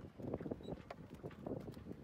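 Faint, irregular clicks and scrapes as a mud crab grips a wooden stick with its claw and scrabbles against the wooden deck.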